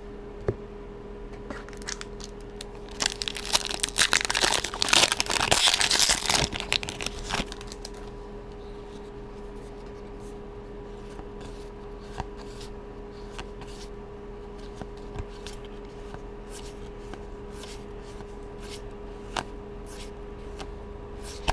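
Foil wrapper of a Magic: The Gathering booster pack being torn open and crinkled for about four seconds, starting a few seconds in; after that, scattered soft clicks as the cards are slid and flipped by hand. A steady low hum runs underneath.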